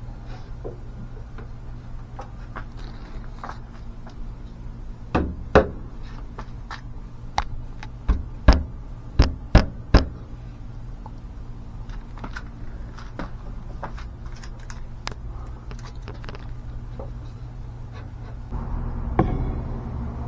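Knocks and taps on wooden workpieces: lighter clicks at first, then a run of about seven loud knocks between about five and ten seconds in, then more scattered light taps. A steady low hum sits underneath and grows louder near the end.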